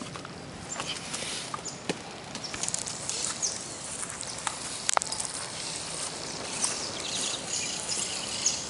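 Outdoor park ambience: many short, high bird chirps over a steady rustle, with one sharp click about five seconds in.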